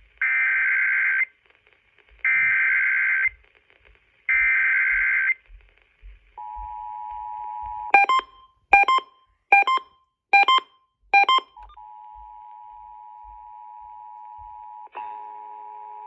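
Emergency Alert System test tones: three one-second bursts of the screeching digital SAME header data, then the steady two-tone EAS attention signal starting about six seconds in. Five short beeps break into the tone around the middle, and lower steady tones join it near the end.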